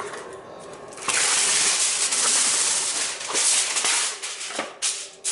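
Aluminium foil being pulled from its box and crinkled as the sheet is handled: a loud, dense crackling rustle that starts about a second in and runs until shortly before the end.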